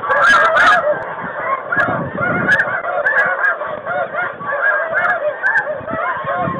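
A large flock of snow geese calling overhead: a dense chorus of many overlapping honks.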